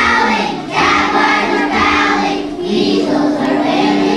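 A children's choir singing with musical accompaniment.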